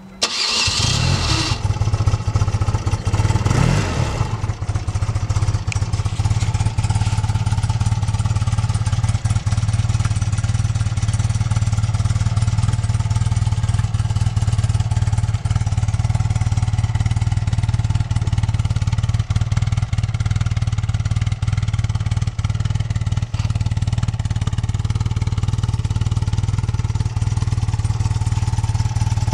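1993 BMW R80RT's air-cooled boxer twin started on the electric starter, catching almost at once, rising and falling briefly about three to four seconds in, then idling steadily.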